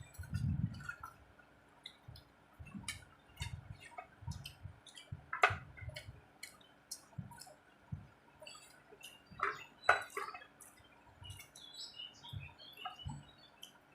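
Close-up eating sounds from rice and curry being eaten: many short wet clicks and smacks of the mouth and lips with soft low chewing thumps. Two sharper clicks stand out, about five seconds in and about ten seconds in.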